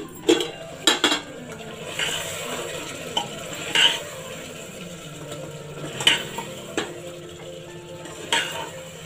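A steel plate clatters as it comes off a pressure cooker pot, then a metal spoon stirs and scrapes thick chicken curry in the pot, clinking against the sides every second or two, with a light sizzle from the curry on a low flame.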